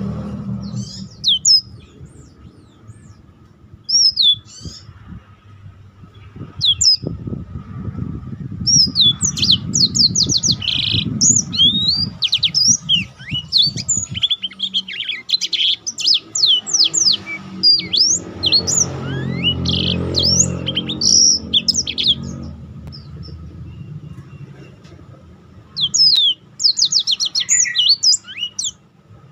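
Black-throated canary singing: short high twittering phrases, then a long run of rapid rolling trills, a pause, and another burst near the end. A low rumble sits underneath at times.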